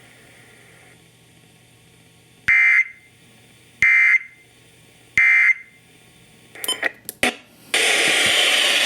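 Sangean weather radio sounding NOAA Weather Radio's end-of-message data code: three short, identical bursts of shrill warbling tones, each about a third of a second, a little over a second apart. A few clicks follow, then a loud steady hiss of radio static near the end.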